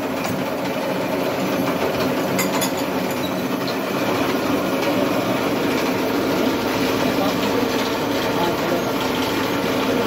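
Ceiling fan manufacturing machine running steadily, a constant mechanical hum with a noisy whir.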